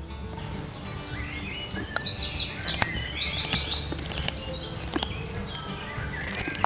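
A songbird singing loudly in quick runs of repeated high notes and trills, over background music with a steady low bass. A few faint clicks come from a knife cutting into the green wood of a stick.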